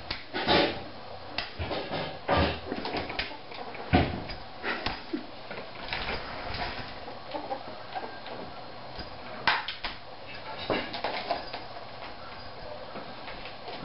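Irregular knocks, clatters and scuffles as a ferret pounces and scrambles around a hard plastic play tunnel on a tile floor, with the tunnel bumping and sliding on the tiles. Three knocks stand out as the loudest: about half a second in, about four seconds in and about nine and a half seconds in.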